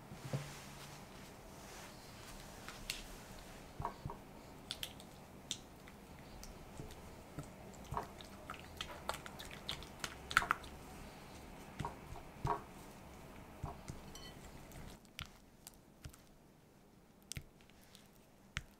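Silicone spatula stirring and folding mascarpone and cream in a glass bowl: soft wet squishing with scattered light taps of the spatula against the glass.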